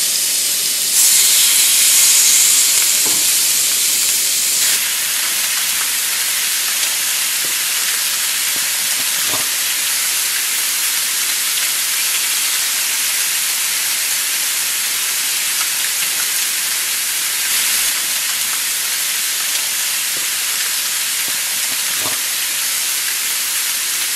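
Skewered shrimp sizzling on a greased, preheated griddle pan: a steady hiss, louder for a few seconds near the start, with a few faint taps.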